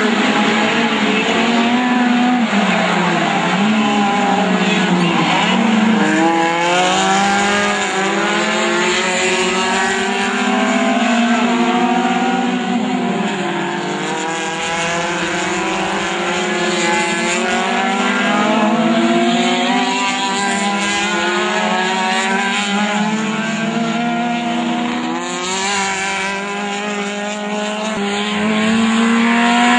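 Several VW Gol touring race cars' engines running hard together, their notes overlapping and repeatedly climbing and dropping in pitch as they rev up through the gears and back off.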